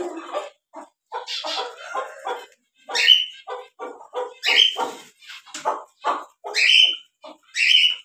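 Repeated animal calls: many short ones, and four louder calls of about half a second each that rise in pitch, spaced a second or two apart.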